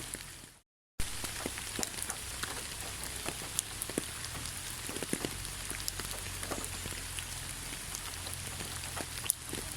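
Steady rain falling, with many individual drops striking close by as sharp ticks over an even hiss. Near the start it fades out to complete silence for about half a second, then comes back abruptly.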